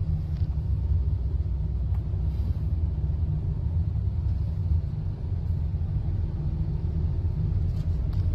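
Steady low rumble of a car driving slowly, heard from inside the car: road and wind noise.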